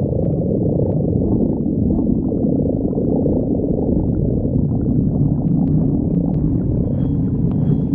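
A person's stomach growling continuously: a steady, low-pitched sound.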